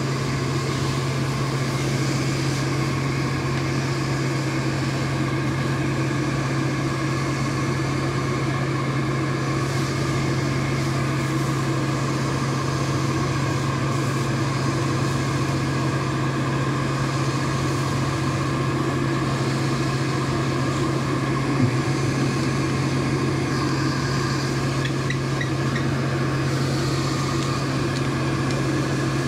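Steady droning hum of a motor-driven air blower running without change, with one brief knock about two-thirds of the way through.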